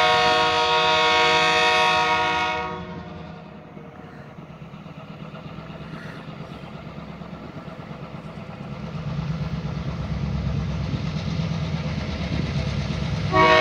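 Diesel locomotive 1400 approaching with its horn sounding a held chord that stops about three seconds in. The low rumble of its diesel engine then grows louder as it nears, and the horn sounds again right at the end.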